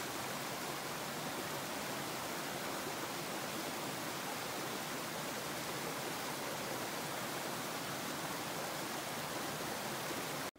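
Steady, even rushing hiss with no rhythm or pitch, held at one level, cutting off suddenly near the end.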